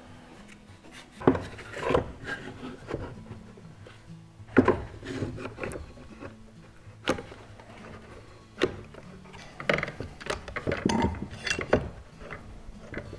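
Thin wooden laminating strips knocking and rubbing as they are set into a curved clamping jig, with scattered sharp knocks and clacks from clamps being fitted and tightened on the glue-up. Faint background music runs underneath.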